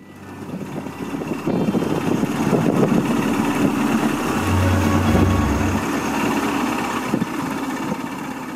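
A small motorboat's engine running steadily while under way, with wind and water noise over the microphone.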